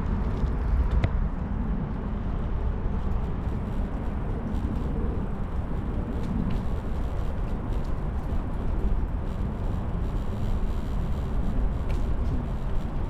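Steady low wind rumble on the microphone from riding a bicycle, with no break or change.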